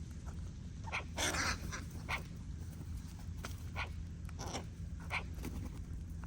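Crows giving short, harsh calls, about seven in all; the loudest and longest comes about a second in. A steady low rumble runs underneath.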